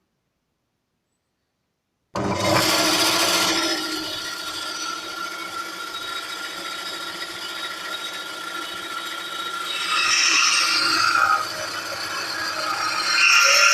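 Titan bandsaw running, starting abruptly about two seconds in with a steady motor hum and blade whir. It gets louder and harsher around ten seconds in and again near the end, as the blade cuts through wood.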